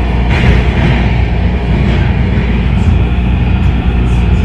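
MARTA heavy-rail subway car running, heard from inside the passenger cabin: a loud, steady rumble of the wheels on the rails.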